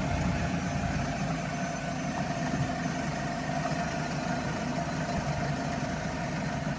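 A vehicle engine running steadily at idle in stopped traffic.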